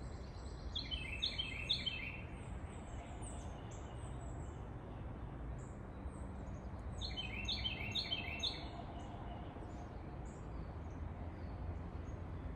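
Backyard ambience with a songbird singing two short phrases of about four quick repeated notes each, roughly six seconds apart. Fainter high chirps and a steady low rumble run underneath.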